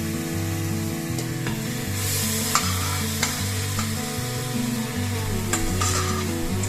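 Food sizzling in a pot while it is stirred, with several sharp clicks of the utensil against the pot, over background music with a bass line.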